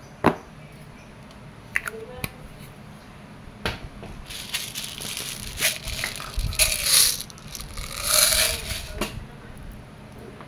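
Handling of an airsoft pistol magazine: a few sharp clicks of plastic and metal, then several seconds of rattling, rustling noise in uneven bursts.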